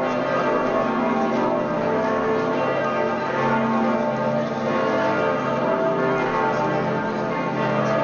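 Munich Cathedral's (Frauenkirche) church bells ringing together in a full peal, many overlapping tones sounding and dying away continuously. They are rung in mourning for the death of former Pope Benedict XVI.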